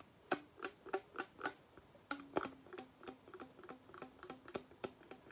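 Rubber bands stretched on a plastic geoboard, plucked by finger in a quick faint series of short low twangs, about three a second. The bands' different lengths give different pitches, the longer one lower; from about two seconds in the notes ring slightly longer and lower.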